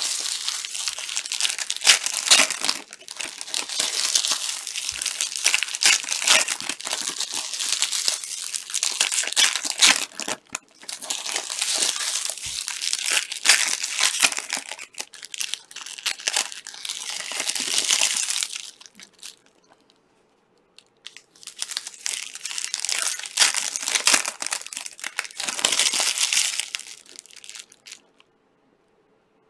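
Trading card pack wrappers crinkling and tearing as packs are ripped open and handled. It comes in three long stretches of dense crackle, with a short break about two-thirds of the way through, and it stops shortly before the end.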